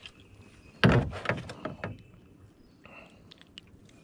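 A heavy thump in a small fishing boat about a second in, followed by a few lighter knocks and clicks, while a caught redear sunfish (shellcracker) is handled and unhooked.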